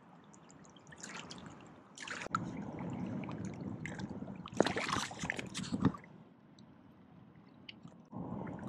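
Shallow river water splashing and trickling in irregular bursts as a hand moves in it close to the microphone, with a quieter pause after the loudest stretch and more splashing near the end.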